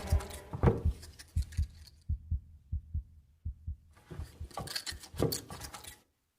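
Heartbeat sound effect: low double thumps about every 0.7 seconds, growing fainter. A short stretch of light clicking and rattling comes near the end, then it falls silent.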